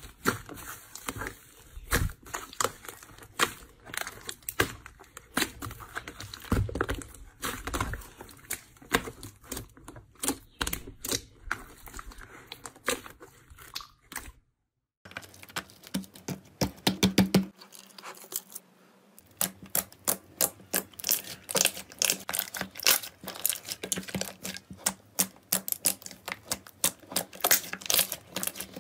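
Hands squeezing, pinching and kneading thick slime, giving dense, rapid crackling and popping clicks. The crackling breaks off briefly about halfway, then carries on just as dense.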